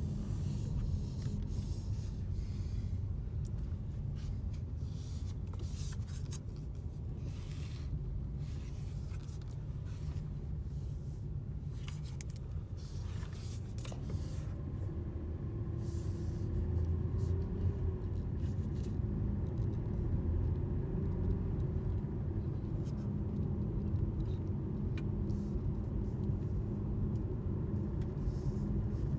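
Cabin noise of a 2017 Jaguar XJR on the move: steady low road and tyre rumble, with a faint, steady hum that comes in about halfway through. The owner hears the hum at every speed from about 18 mph, with its pitch changing with road surface and bumps, and unaffected by braking, turning or the AC.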